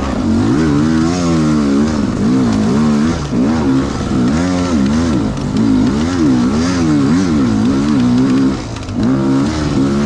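Dirt bike engine revving up and down over and over as the throttle is worked to keep momentum over rocky single track.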